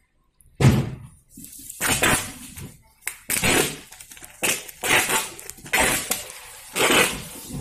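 Packing tape being pulled off its roll in short rasping bursts, about one a second, and pressed onto a brown-paper parcel.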